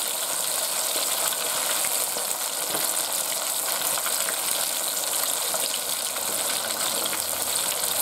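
A whole oniokoze (devil stinger) fish deep-frying in a pot of hot oil: steady sizzling and bubbling, with many fine crackles.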